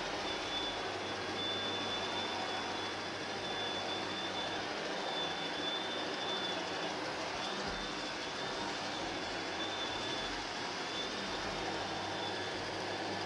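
Canister vacuum cleaner running steadily, with a thin high whine that drops out briefly a few times, as the nozzle sucks over a floor mat.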